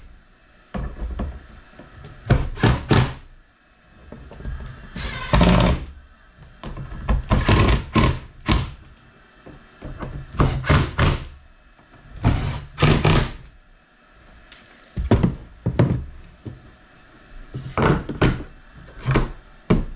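Cordless impact driver running in repeated short bursts of about a second, hammering as it drives bolts down into the jet ski's plastic deck plate.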